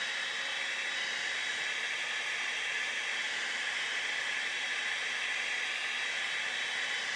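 Hair dryer blowing hot air steadily onto a fishing lure, heat-setting freshly airbrushed paint. It gives an even hiss of rushing air.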